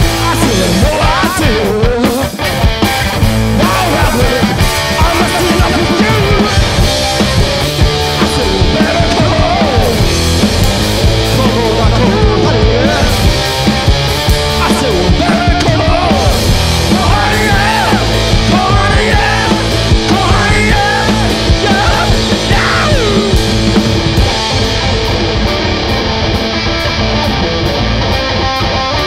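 Live punk-blues rock from a two-piece band playing a song: loud, dense electric guitar with a melody line that bends up and down in pitch.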